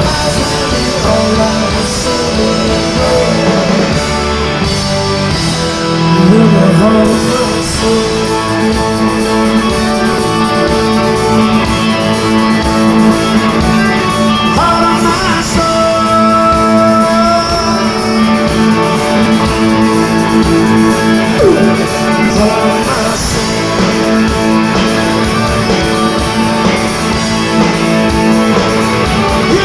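A Southern rock band playing live: distorted electric guitars, drums and a singer, loud and continuous.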